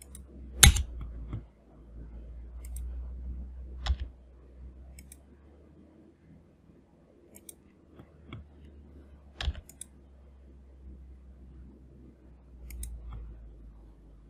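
Scattered computer mouse clicks, the sharpest about a second in, near four seconds and just before ten seconds, over a low steady hum.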